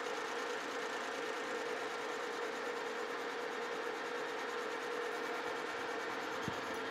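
Metal lathe running steadily, taking a light turning cut to clean up the outside of a metal workpiece held in a four-jaw chuck: a steady hum over an even hiss.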